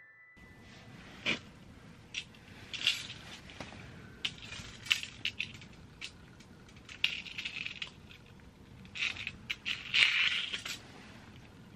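Close handling noise of a metal ice-fishing rig being set up over the hole: scattered clicks, clinks and scrapes, busiest about three seconds in and again from about nine to eleven seconds.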